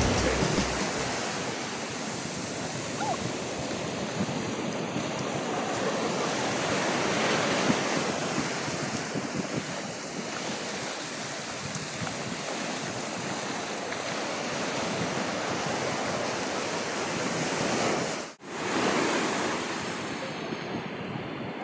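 Sea surf breaking and washing up over the sand in a steady rush of water. The sound drops out for a moment about eighteen seconds in.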